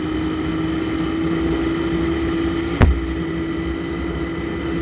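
Shineray Phoenix 50cc motorcycle engine running under way at a steady pitch, made loud by a hole cut in its exhaust pipe. One sharp crack a little under three seconds in.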